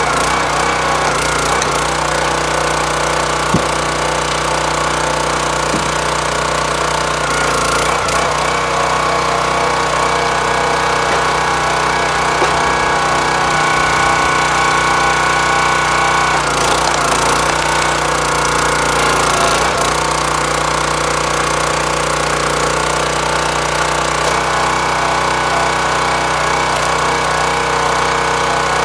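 Hydraulic log splitter's small engine running steadily while the ram drives an ash round into a four-way wedge. Its note dips briefly a few times just past the middle as the wood is pushed through.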